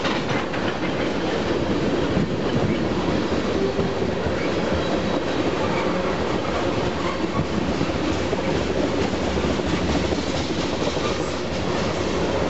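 Freight train of tank cars rolling past: a steady rumble of steel wheels on the rails, with the clack of wheels over rail joints.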